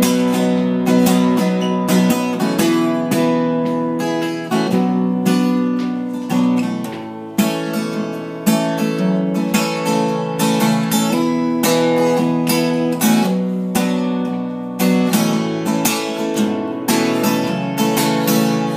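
Acoustic guitar strumming chords in an instrumental break, with no singing.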